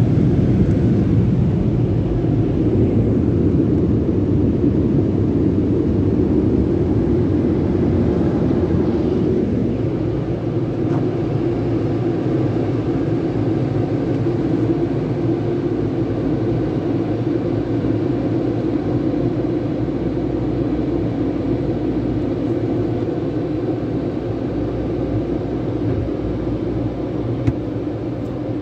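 Car wash tunnel air dryers blowing on the car, heard from inside the cabin as a loud, steady rush and rumble. About ten seconds in the sound shifts to a lower, steadier rumble as the car rolls out of the tunnel.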